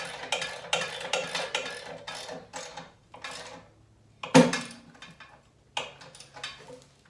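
Quick metallic clicking from hand tools and hardware during assembly, about three to four clicks a second for the first three seconds, then one loud metal clank about four seconds in and a few lighter clicks near the end.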